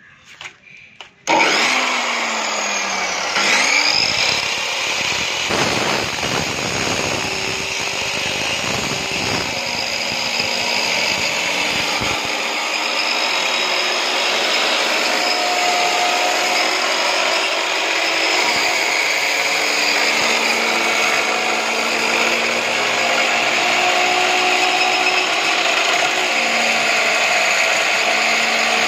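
Gaocheng GC-WL355G 2300 W abrasive cut-off saw switched on about a second in, its motor whining up to speed, then its abrasive wheel grinding steadily through a steel bar under load.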